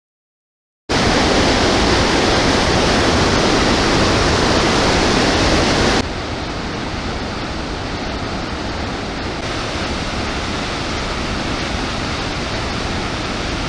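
Orange River in flood pouring over the Augrabies Falls: a dense, steady rush of water that starts abruptly about a second in, becomes a little quieter and less hissy about six seconds in, and then cuts off.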